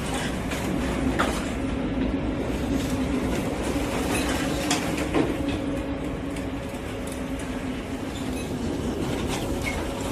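Machinery running with a steady hum under constant rattling noise, with a few sharp knocks.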